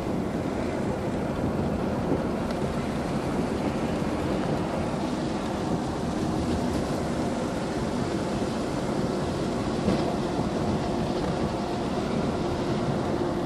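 Steady road and engine noise of a moving Mercedes-Benz car, heard from inside the cabin, with two light knocks at about two and ten seconds in.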